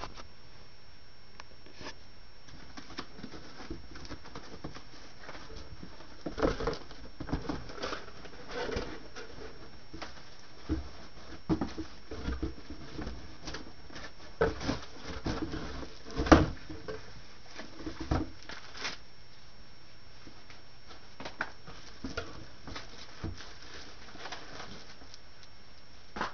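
Scattered rustles and knocks of a cardboard box and its packing being handled as the amplifier is lifted out in its plastic wrap. The noises come in irregular clusters from about six seconds in to about nineteen seconds, the loudest knock about two-thirds of the way through, over a steady faint hiss.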